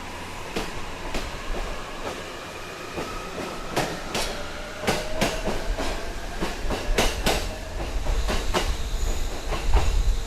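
A real train pulling away: wheels clacking over rail joints in paired clicks that come more often as it speeds up, with a whine rising in pitch and a low rumble growing louder toward the end.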